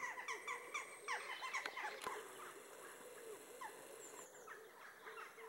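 Small birds chirping: many quick, short chirps that drop in pitch, faint and overlapping.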